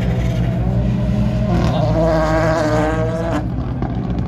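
Rally car's turbocharged four-cylinder engine revving hard over a steady low rumble. Its note climbs from about a second and a half in and cuts off sharply about three and a half seconds in.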